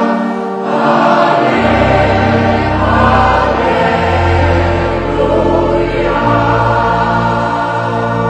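Choir singing a church hymn in held, sustained notes, with steady low notes joining underneath about a second and a half in.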